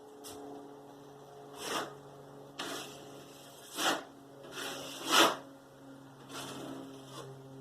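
Drywall knife scraping and spreading setting-type joint compound: a string of short scrapes, the loudest about five seconds in, over a steady low hum.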